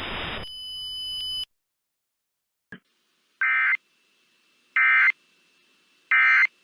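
Emergency Alert System data bursts: three short, identical buzzy beeps about a second and a half apart. They are the end-of-message code that closes an EAS test broadcast. A faint click comes shortly before them.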